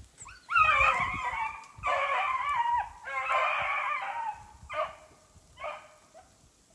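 Hound baying on a hare's track: three long drawn-out bawls, then two shorter ones.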